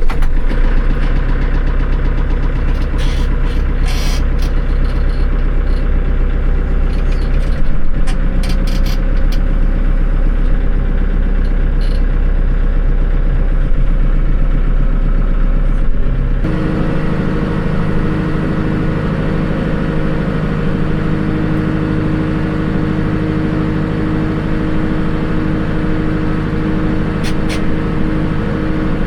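Tractor engine running steadily while the tractor is driven, with an abrupt change in its tone about halfway through.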